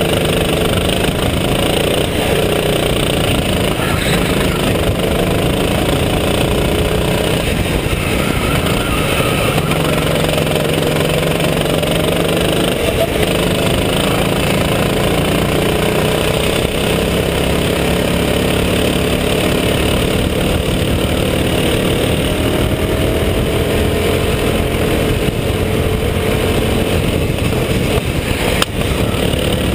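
Kart engine running at speed on track, heard close from on board, its pitch rising and falling as it accelerates and slows through the corners.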